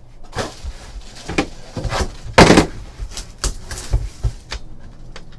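Hands handling and opening a sealed box of trading cards and its packs: scattered knocks and clicks of cardboard and packaging against the table, with a louder rustle about two and a half seconds in.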